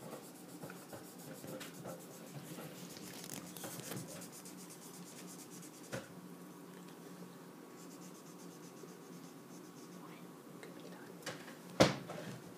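A colouring tool scribbling back and forth on paper in quick, scratchy strokes as a drawing is filled in with colour. A single sharp knock comes near the end.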